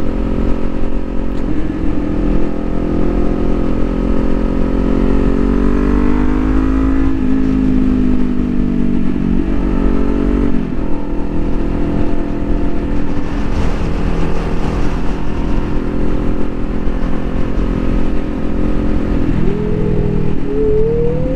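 Kawasaki Ninja 400 parallel-twin engine, on its stock exhaust, accelerating hard with rising pitch. The pitch drops at gear changes about seven and eleven seconds in, then the engine runs steadily before rising again near the end. Wind rush is constant underneath.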